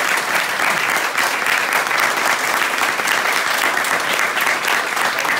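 A small group of people applauding, a steady patter of hand claps.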